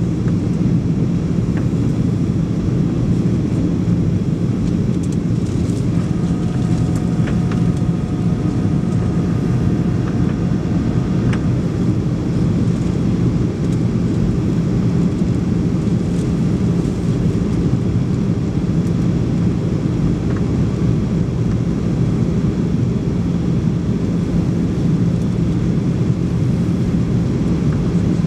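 Steady cabin noise of a Boeing 737-800 airliner on descent: its CFM56 jet engines and the airflow over the fuselage, heard inside the cabin as a constant low rush with a steady hum. A faint higher whine joins for about five seconds, starting about six seconds in.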